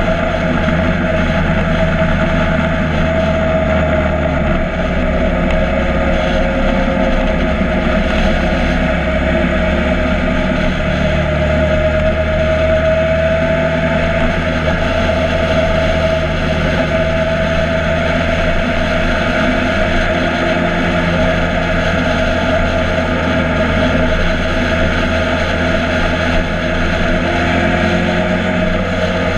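Motorcycle engine running steadily while riding, its pitch drifting gently up and down with road speed.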